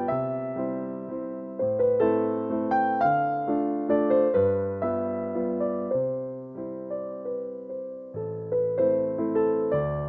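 Background music: gentle electric piano playing slow chords with a melody, notes struck and left to die away.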